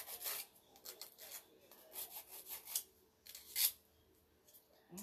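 Nail file rasping against a fingernail in short, uneven strokes.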